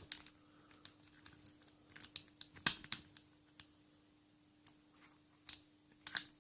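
Small metal parts of a Lockwood 310/72 padlock clicking and clacking as they are handled and fitted during reassembly: scattered light taps, with one sharper clack about two and a half seconds in.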